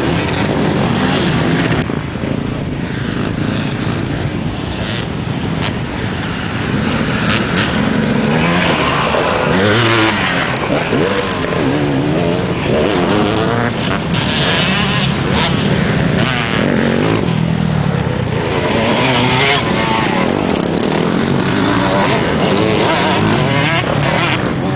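Several enduro/motocross motorcycles racing together, their engines revving up and down and overlapping as they accelerate and back off.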